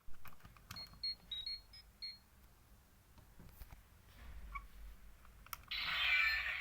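A toy transformation device: button clicks and a quick run of short high electronic beeps, then, near the end, a loud burst of its electronic sound effect from the toy's small speaker.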